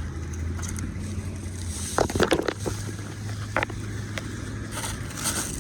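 Low steady hum of an idling vehicle engine, with a short burst of crackling and scraping about two seconds in and a single sharp click a second or so later, as fallen eucalyptus branches are handled.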